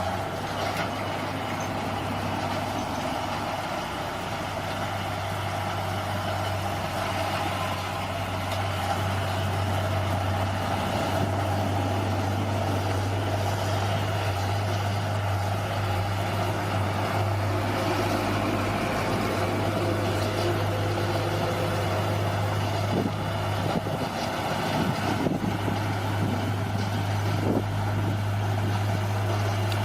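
Bulldozer's diesel engine running steadily under load, with a few short knocks in the last several seconds.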